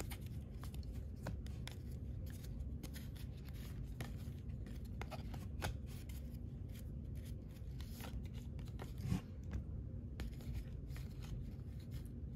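Paper baseball trading cards being flipped through by hand, each card sliding off the stack with small irregular clicks and swishes, over a steady low hum.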